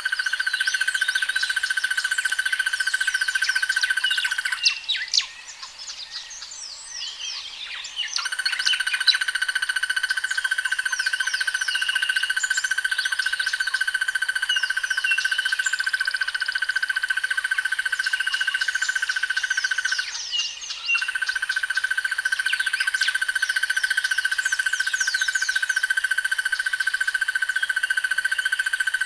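Crested barbet giving its long, rapid, buzzing trill on one steady pitch. The trill breaks off for about three seconds around five seconds in, and again briefly about twenty seconds in. Other birds' short chirps and whistles sound over it throughout.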